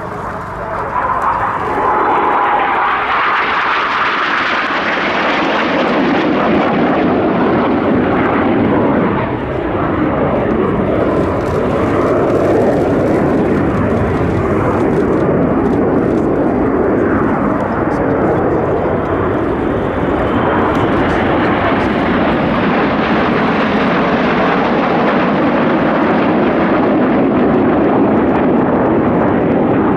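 Loud jet noise from BAE Hawk T1 jet trainers flying a display. It builds about a second in and then holds loud, sinking lower in pitch after the first several seconds.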